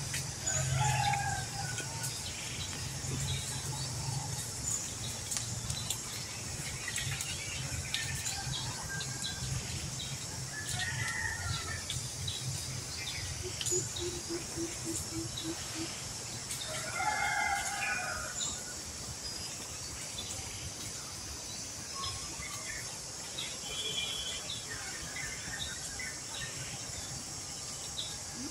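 A rooster crowing a few times in the background, the loudest crow about two-thirds of the way through, over a steady high hiss and a low hum that fades after the first few seconds.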